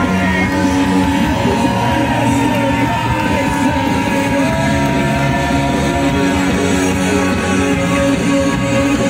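Rock music with a singing voice, loud and steady throughout.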